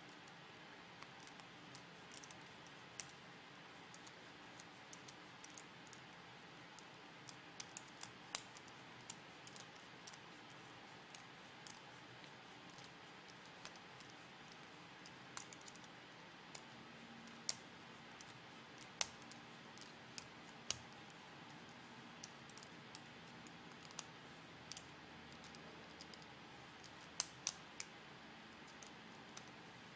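Faint, scattered clicks and ticks of a small screwdriver and tiny screws against plastic parts as a servo horn is screwed onto the underside of a robot's plastic head plate, over quiet room hiss.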